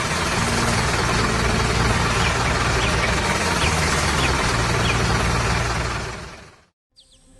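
Heavy vehicle engine running steadily, with a deep low hum under a broad noise, fading out to silence about six and a half seconds in.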